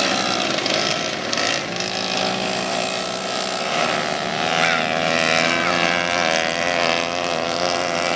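Engines of several single-speed racing motorbikes running at high revs on the dirt track, their overlapping notes rising and falling in pitch.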